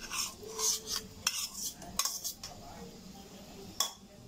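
Metal spoon scraping and clinking against a bowl as pineapple chunks are pushed into a metal pot of curry, then stirring in the pot, with a sharp clink near the end.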